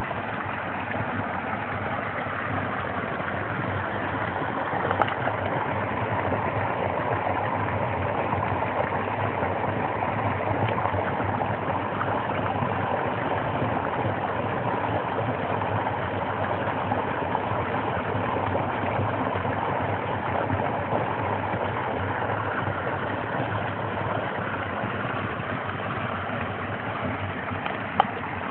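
Snowmelt water in a small stream rushing and splashing over rocks in a little cascade, a steady even rush. Two brief clicks stand out, about five seconds in and near the end.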